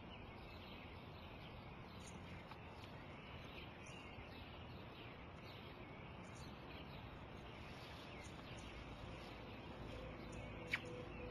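Faint outdoor ambience: a steady hiss with scattered small bird chirps, and one brief sharp chirp near the end.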